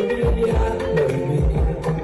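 Music with a heavy bass beat under sustained pitched tones.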